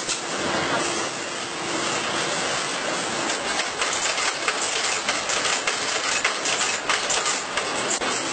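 Shoe-factory machinery running: a steady mechanical noise with rapid clicking and clattering, the sharp ticks coming thicker over the second half.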